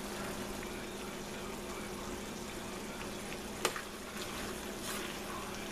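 Thick ground-beef sloppy joe sauce bubbling and simmering in a stainless steel pot, a steady soft hiss, with a single sharp click about three and a half seconds in.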